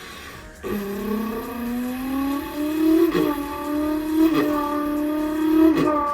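A boy's mouth imitation of a Nissan GT-R engine: a buzzing vocal engine note that starts about half a second in and climbs slowly in pitch, broken by short gear-shift-like breaks three times.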